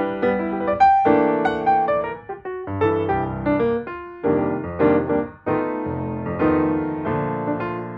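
Background piano music, a run of struck notes and chords.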